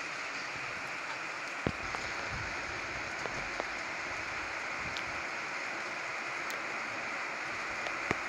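Steady rain falling on the farmyard's roofs and ground, a continuous hiss with a few sharper taps of drops and an occasional dull knock.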